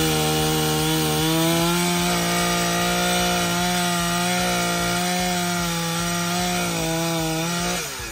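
Gas chainsaw running steadily under load as it cuts through a wooden post, its engine holding one high note. Near the end the throttle eases and the engine note drops.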